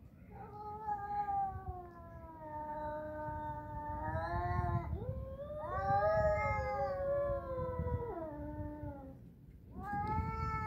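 Two cats caterwauling at each other in a face-off: long, drawn-out yowls, each lasting about four seconds and wavering in pitch, one after another with a third starting near the end. It is the threat yowling of a territorial standoff just short of a fight.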